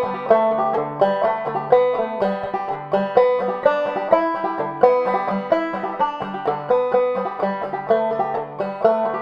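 Banjo played clawhammer style: a steady, rhythmic run of plucked notes and brushed strums.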